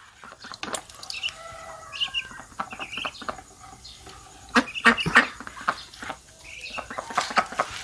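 Young ducks peeping in short high calls, mixed with sharp knocks and splashy clatter, the loudest a cluster about four and a half to five seconds in.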